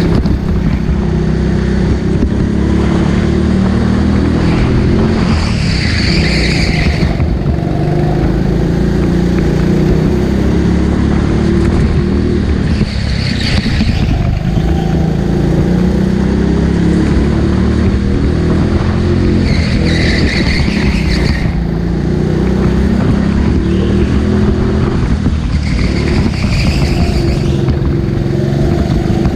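Go-kart engine running continuously at racing speed, its pitch rising and falling through the laps. Four brief, higher-pitched squeals come at roughly seven-second intervals.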